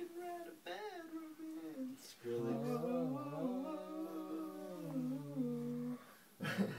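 Voices humming a wandering tune: a higher line at first, then after a brief gap about two seconds in, a lower, fuller hum with overlapping voices. A short, sharp noisy sound near the end.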